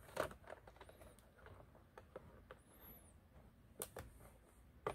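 Faint plastic clicks and light handling as wire connectors are pulled off the circuit board of a robotic mower charging station, with two sharper clicks near the end.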